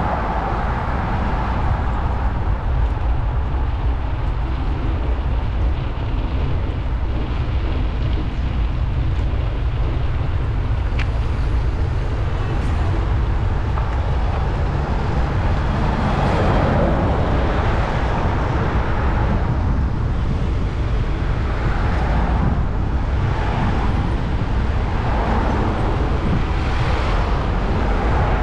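Urban road traffic heard from a moving bicycle: a steady low rumble, with several vehicles passing close by in the second half.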